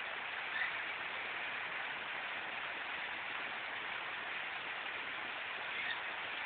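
Heavy rain falling steadily on concrete paving and plant leaves, an even hiss. Two louder drops or splashes stand out, one about half a second in and one near the end.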